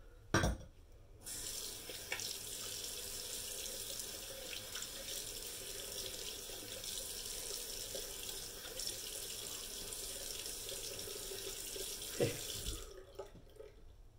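Bathroom sink tap running, water splashing into the basin for about eleven seconds. A sharp knock comes just before the water starts, and another shortly before it stops.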